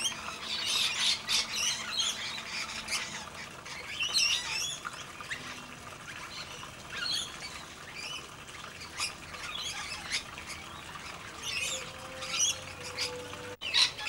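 Rainbow lorikeets screeching in repeated short, harsh squawks, several a second, while they squabble over food.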